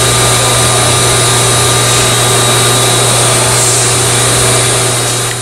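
Steady, loud machinery drone: a constant low hum with a broad hiss and a few steady higher tones, unchanging until it starts to fade near the end.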